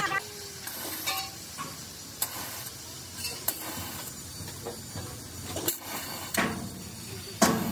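Scattered metal clinks, taps and scrapes of hand tools at work, about seven knocks in all over a steady hiss, the loudest near the end.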